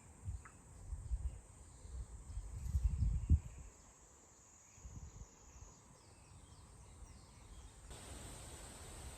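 Quiet outdoor ambience: a faint, steady high-pitched insect drone, with low rumbles in the first few seconds.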